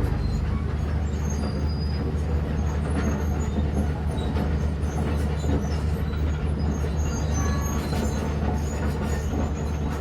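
A steady, low mechanical drone like a running engine or heavy machine, with scattered short high squeaks over it.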